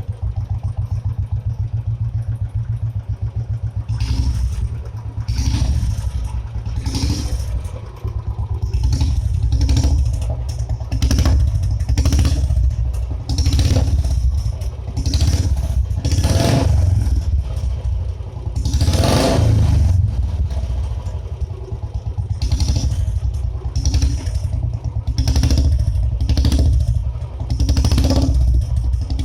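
Royal Enfield Bullet 350's single-cylinder engine through a short-bottle (dholki) silencer on the stock bend pipe. It idles with an even thump for a few seconds, then is revved again and again, the throttle blipped and released every second or two, with two longer, higher revs past the middle.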